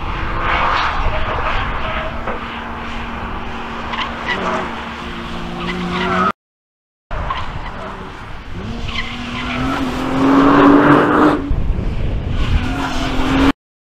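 Nissan GT-R's 3.8-litre twin-turbo V6 running hard on a race track. There are two stretches of engine note, split by a brief break in the sound about six seconds in. In the second, the pitch rises as the car accelerates, loudest near the end.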